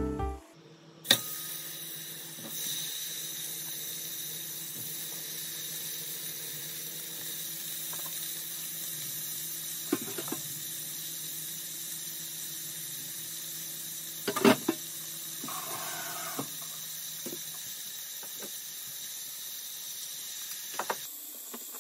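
Diced beef sizzling steadily in hot oil in a pot, with a few short knocks.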